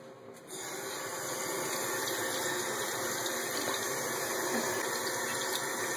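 Water tap turned on about half a second in, then running steadily into a sink.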